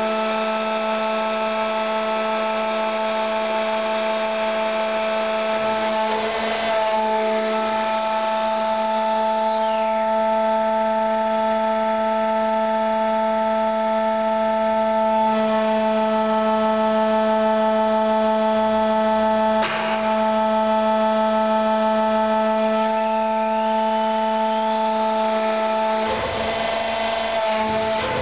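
Drive of a lip-axis foundry ladle pouring unit running with a steady multi-tone hum. Over it a high whine falls in pitch about eight seconds in and climbs again about twenty-three seconds in, as the ladle tilts and returns. A few short knocks come about six, twenty and twenty-six seconds in.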